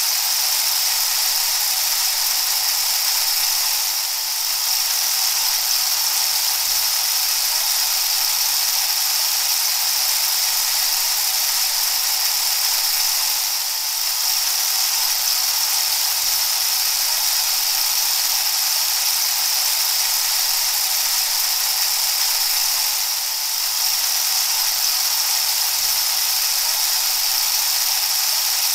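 A steady hiss of noise with a low hum beneath it, dipping slightly three times, about every ten seconds.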